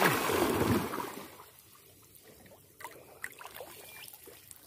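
Water splashing loudly for about a second as hands stir and lift from shallow water, then fainter trickling and dripping with a few small ticks.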